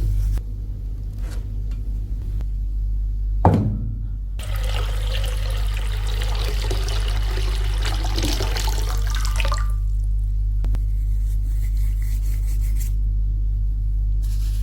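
A steady low hum throughout, a single sharp knock about three and a half seconds in, then about five seconds of loud rushing hiss that stops abruptly.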